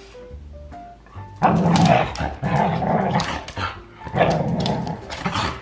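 Siberian husky vocalizing in a run of loud, rough barks and husky 'talking' bursts, starting about a second and a half in, excited at the offer of a walk.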